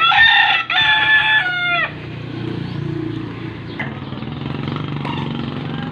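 A rooster crowing once, loud, its call breaking briefly and ending on a falling note about two seconds in. A steady low engine hum follows.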